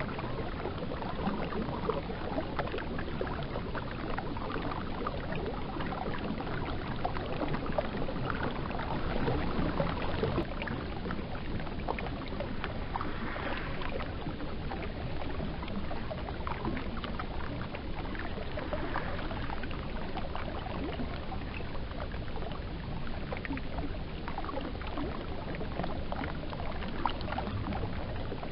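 Steady rushing noise of river water, with many small splashes and clicks.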